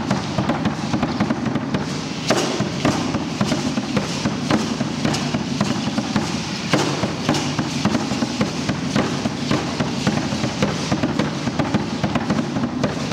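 Aztec dance drumming: a steady, fast, driving drum beat with a dense dry clatter over it.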